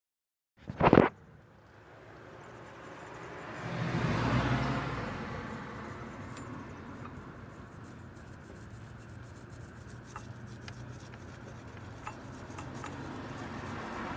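Ford Crown Victoria V8 engine running, swelling about four seconds in and then settling to a steady run. A short, sharp loud noise comes about a second in.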